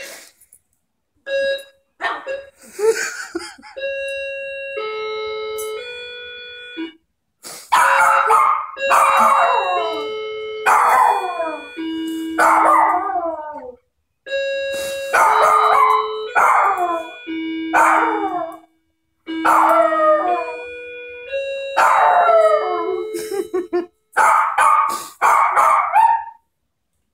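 A doorbell chime plays its multi-note tune again and again, malfunctioning. A Maltese howls along with it in high howls that slide down in pitch. The howling is sparse at first and fills in strongly from about seven seconds in.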